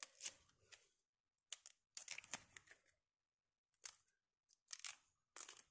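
Faint crisp rustling and crackling of dry plant material, coming in about six short irregular bursts.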